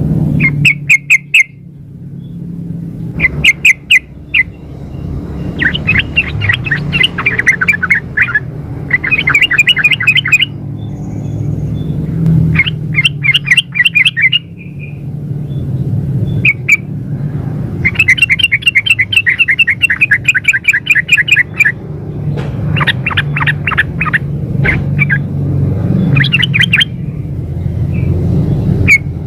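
Yellow-vented bulbul (trucukan) giving a female's call to a male: bursts of quick, repeated, chattering notes, some brief and some running several seconds, with short pauses between. A steady low hum lies underneath.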